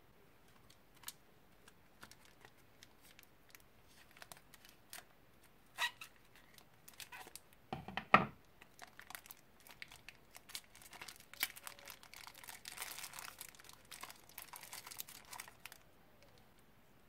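Small plastic bag crinkling and rustling as it is handled, opened and shaken to empty purple cubes out of it, with scattered light clicks at first and a sharp, loud crackle about eight seconds in.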